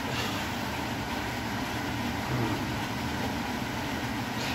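A steady low mechanical hum, with no change over the few seconds.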